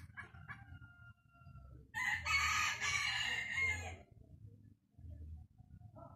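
A rooster crows once, a loud call lasting about two seconds.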